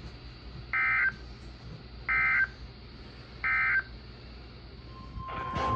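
Three short, identical screeching data bursts of an Emergency Alert System SAME code, about 1.4 s apart, sent right after a weather radio message ends: the end-of-message signal. Near the end a steady NOAA Weather Radio alert tone begins, together with a brief noise burst.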